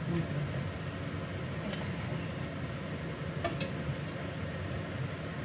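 Honey garlic sauce sizzling in a nonstick frying pan while fried chicken fillets are moved into it with a spatula, with a few light clicks of the spatula against a steel plate about two and three and a half seconds in. A steady low hum runs underneath.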